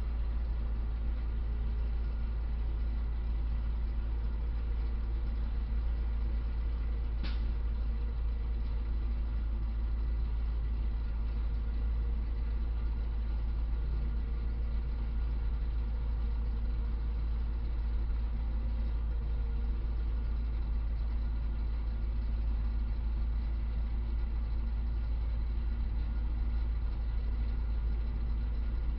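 A motor vehicle's engine running steadily with a heavy low rumble, unchanging throughout, with a single sharp click about seven seconds in.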